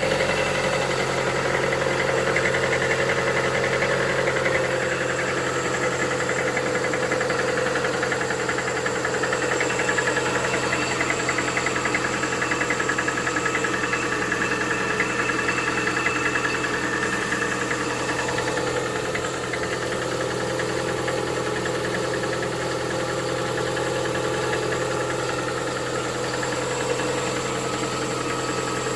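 Lada Vesta's 1.8-litre four-cylinder engine idling from a cold start, with a fast, even knocking running through the idle: the knock that shows when the engine is cold.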